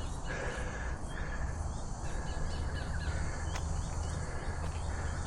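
Bush ambience: a steady low rumble under faint, short, high bird chirps that come again and again.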